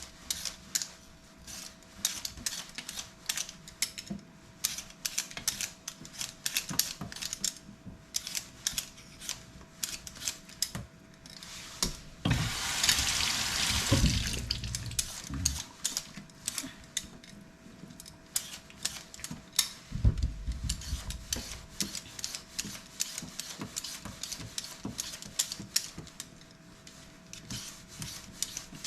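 Kitchen work sounds: frequent light knocks and clicks of utensils, with a water tap running for about two seconds near the middle. A faint steady hum underlies it.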